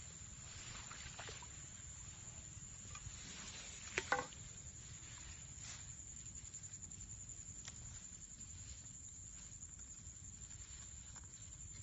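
Faint rustling and handling of a fish-trap net and grass, with a steady high hiss throughout. A sharp double click about four seconds in is the loudest sound.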